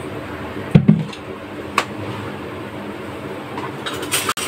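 Gas stove burner running steadily under a kadhai of oil that is heating up, with a heavy knock about a second in and metal utensil clinks near the end.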